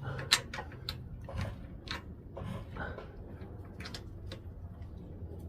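Scattered light clicks and taps of hand tools and small engine parts being handled while a carburetor is bolted onto a small snowblower engine, irregular and spaced a fraction of a second to a second apart, over a faint steady low hum.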